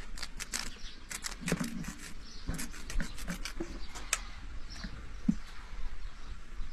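Wet clicks and light taps of hands working raw chicken pieces over a metal bowl, coming thick and fast for about four seconds, then thinning out.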